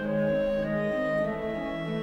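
Slow orchestral background music with long held notes.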